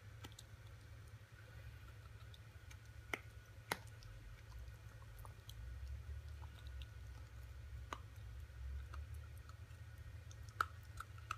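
Dog chewing a hard white chew stick: faint, scattered sharp clicks of teeth on the chew, loudest about three and a half seconds in and again near the end.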